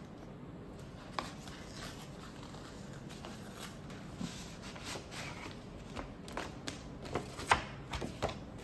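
A kraft-paper envelope being handled and opened: paper rustling and crinkling with short sharp crackles. The crackles grow denser and louder near the end as the flap is pulled back and the contents are slid out.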